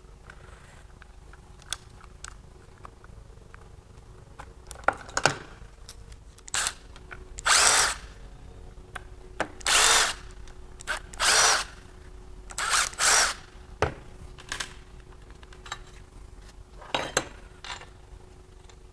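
Cordless Milwaukee Fuel power driver spinning out bolts in short bursts, about eight of them, each under a second, with the busiest run in the middle: backing out the camshaft retainer plate bolts on a bare V8 block.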